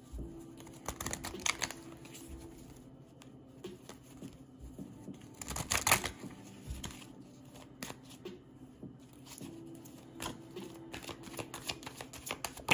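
A deck of oracle cards being shuffled by hand: a run of quick papery flicks and card slaps, loudest in a burst about six seconds in.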